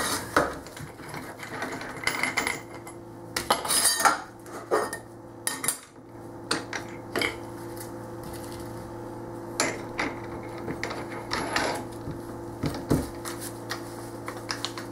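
Irregular metallic clicks and clinks as a diamond cutoff disc and its flange nut are fitted onto an angle grinder by hand, over a steady low hum.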